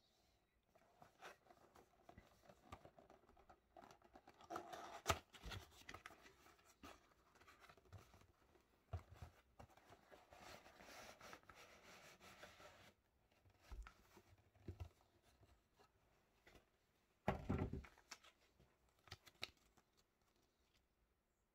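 Cardboard knife box being handled and opened by hand: quiet scraping and rustling of the card and its tuck flap, with a paper card slid out. The rustling comes in louder spells about five seconds in and around eleven seconds, with one short louder scrape near the end.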